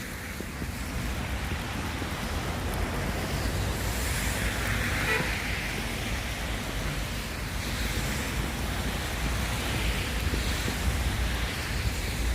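Street traffic in falling snow: a vehicle passes on the slushy road, loudest about five seconds in, over a steady low rumble of wind on the microphone.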